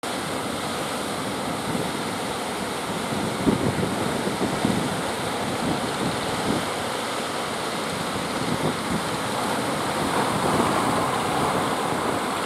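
Surf breaking and washing, with wind buffeting the microphone in a few low gusts.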